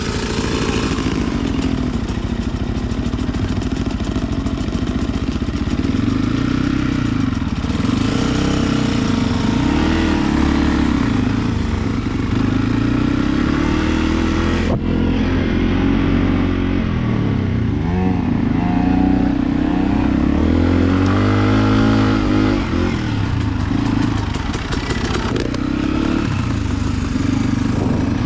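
Enduro dirt bike engine running under way, its revs rising and falling repeatedly as the throttle is worked, with a sharp knock about halfway through.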